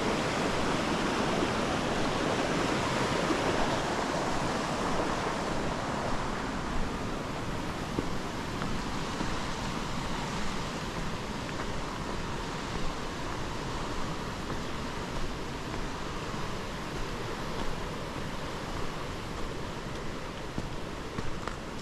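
Steady rushing of a mountain creek, slowly growing fainter.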